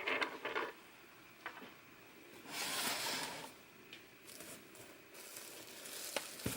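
Packaging being handled during an unboxing: two short bursts of rustling and tearing, with a few light clicks between them.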